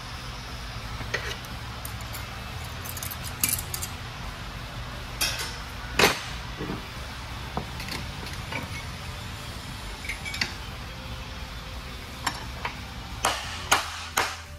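Scattered metallic clinks and clanks as gears and parts inside an Eaton Fuller FRO-16210C 10-speed truck transmission are worked loose by hand, with a quick run of hammer blows on the case near the end. A steady low hum runs underneath.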